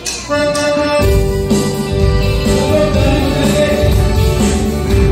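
Live band playing the opening of a Hindi Christian worship song on keyboards, electric guitar and percussion. A held keyboard chord enters just after the start, and about a second in the whole band comes in with a strong bass.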